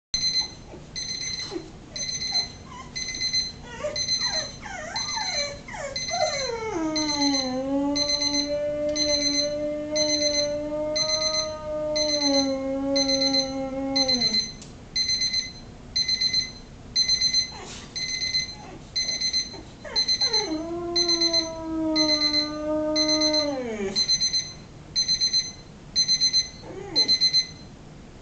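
Kitchen timer beeping over and over with a high electronic tone while a Boxer dog howls along to it. The dog gives two long howls: the first starts with a few rising yelps and is held for several seconds before falling away; the second comes a few seconds later and is shorter.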